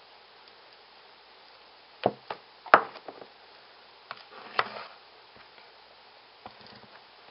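Nail-stamping tools tapping and clicking against a metal stamping plate and the tabletop: a few sharp knocks, the loudest a little under three seconds in, then a short scrape across the plate near five seconds in.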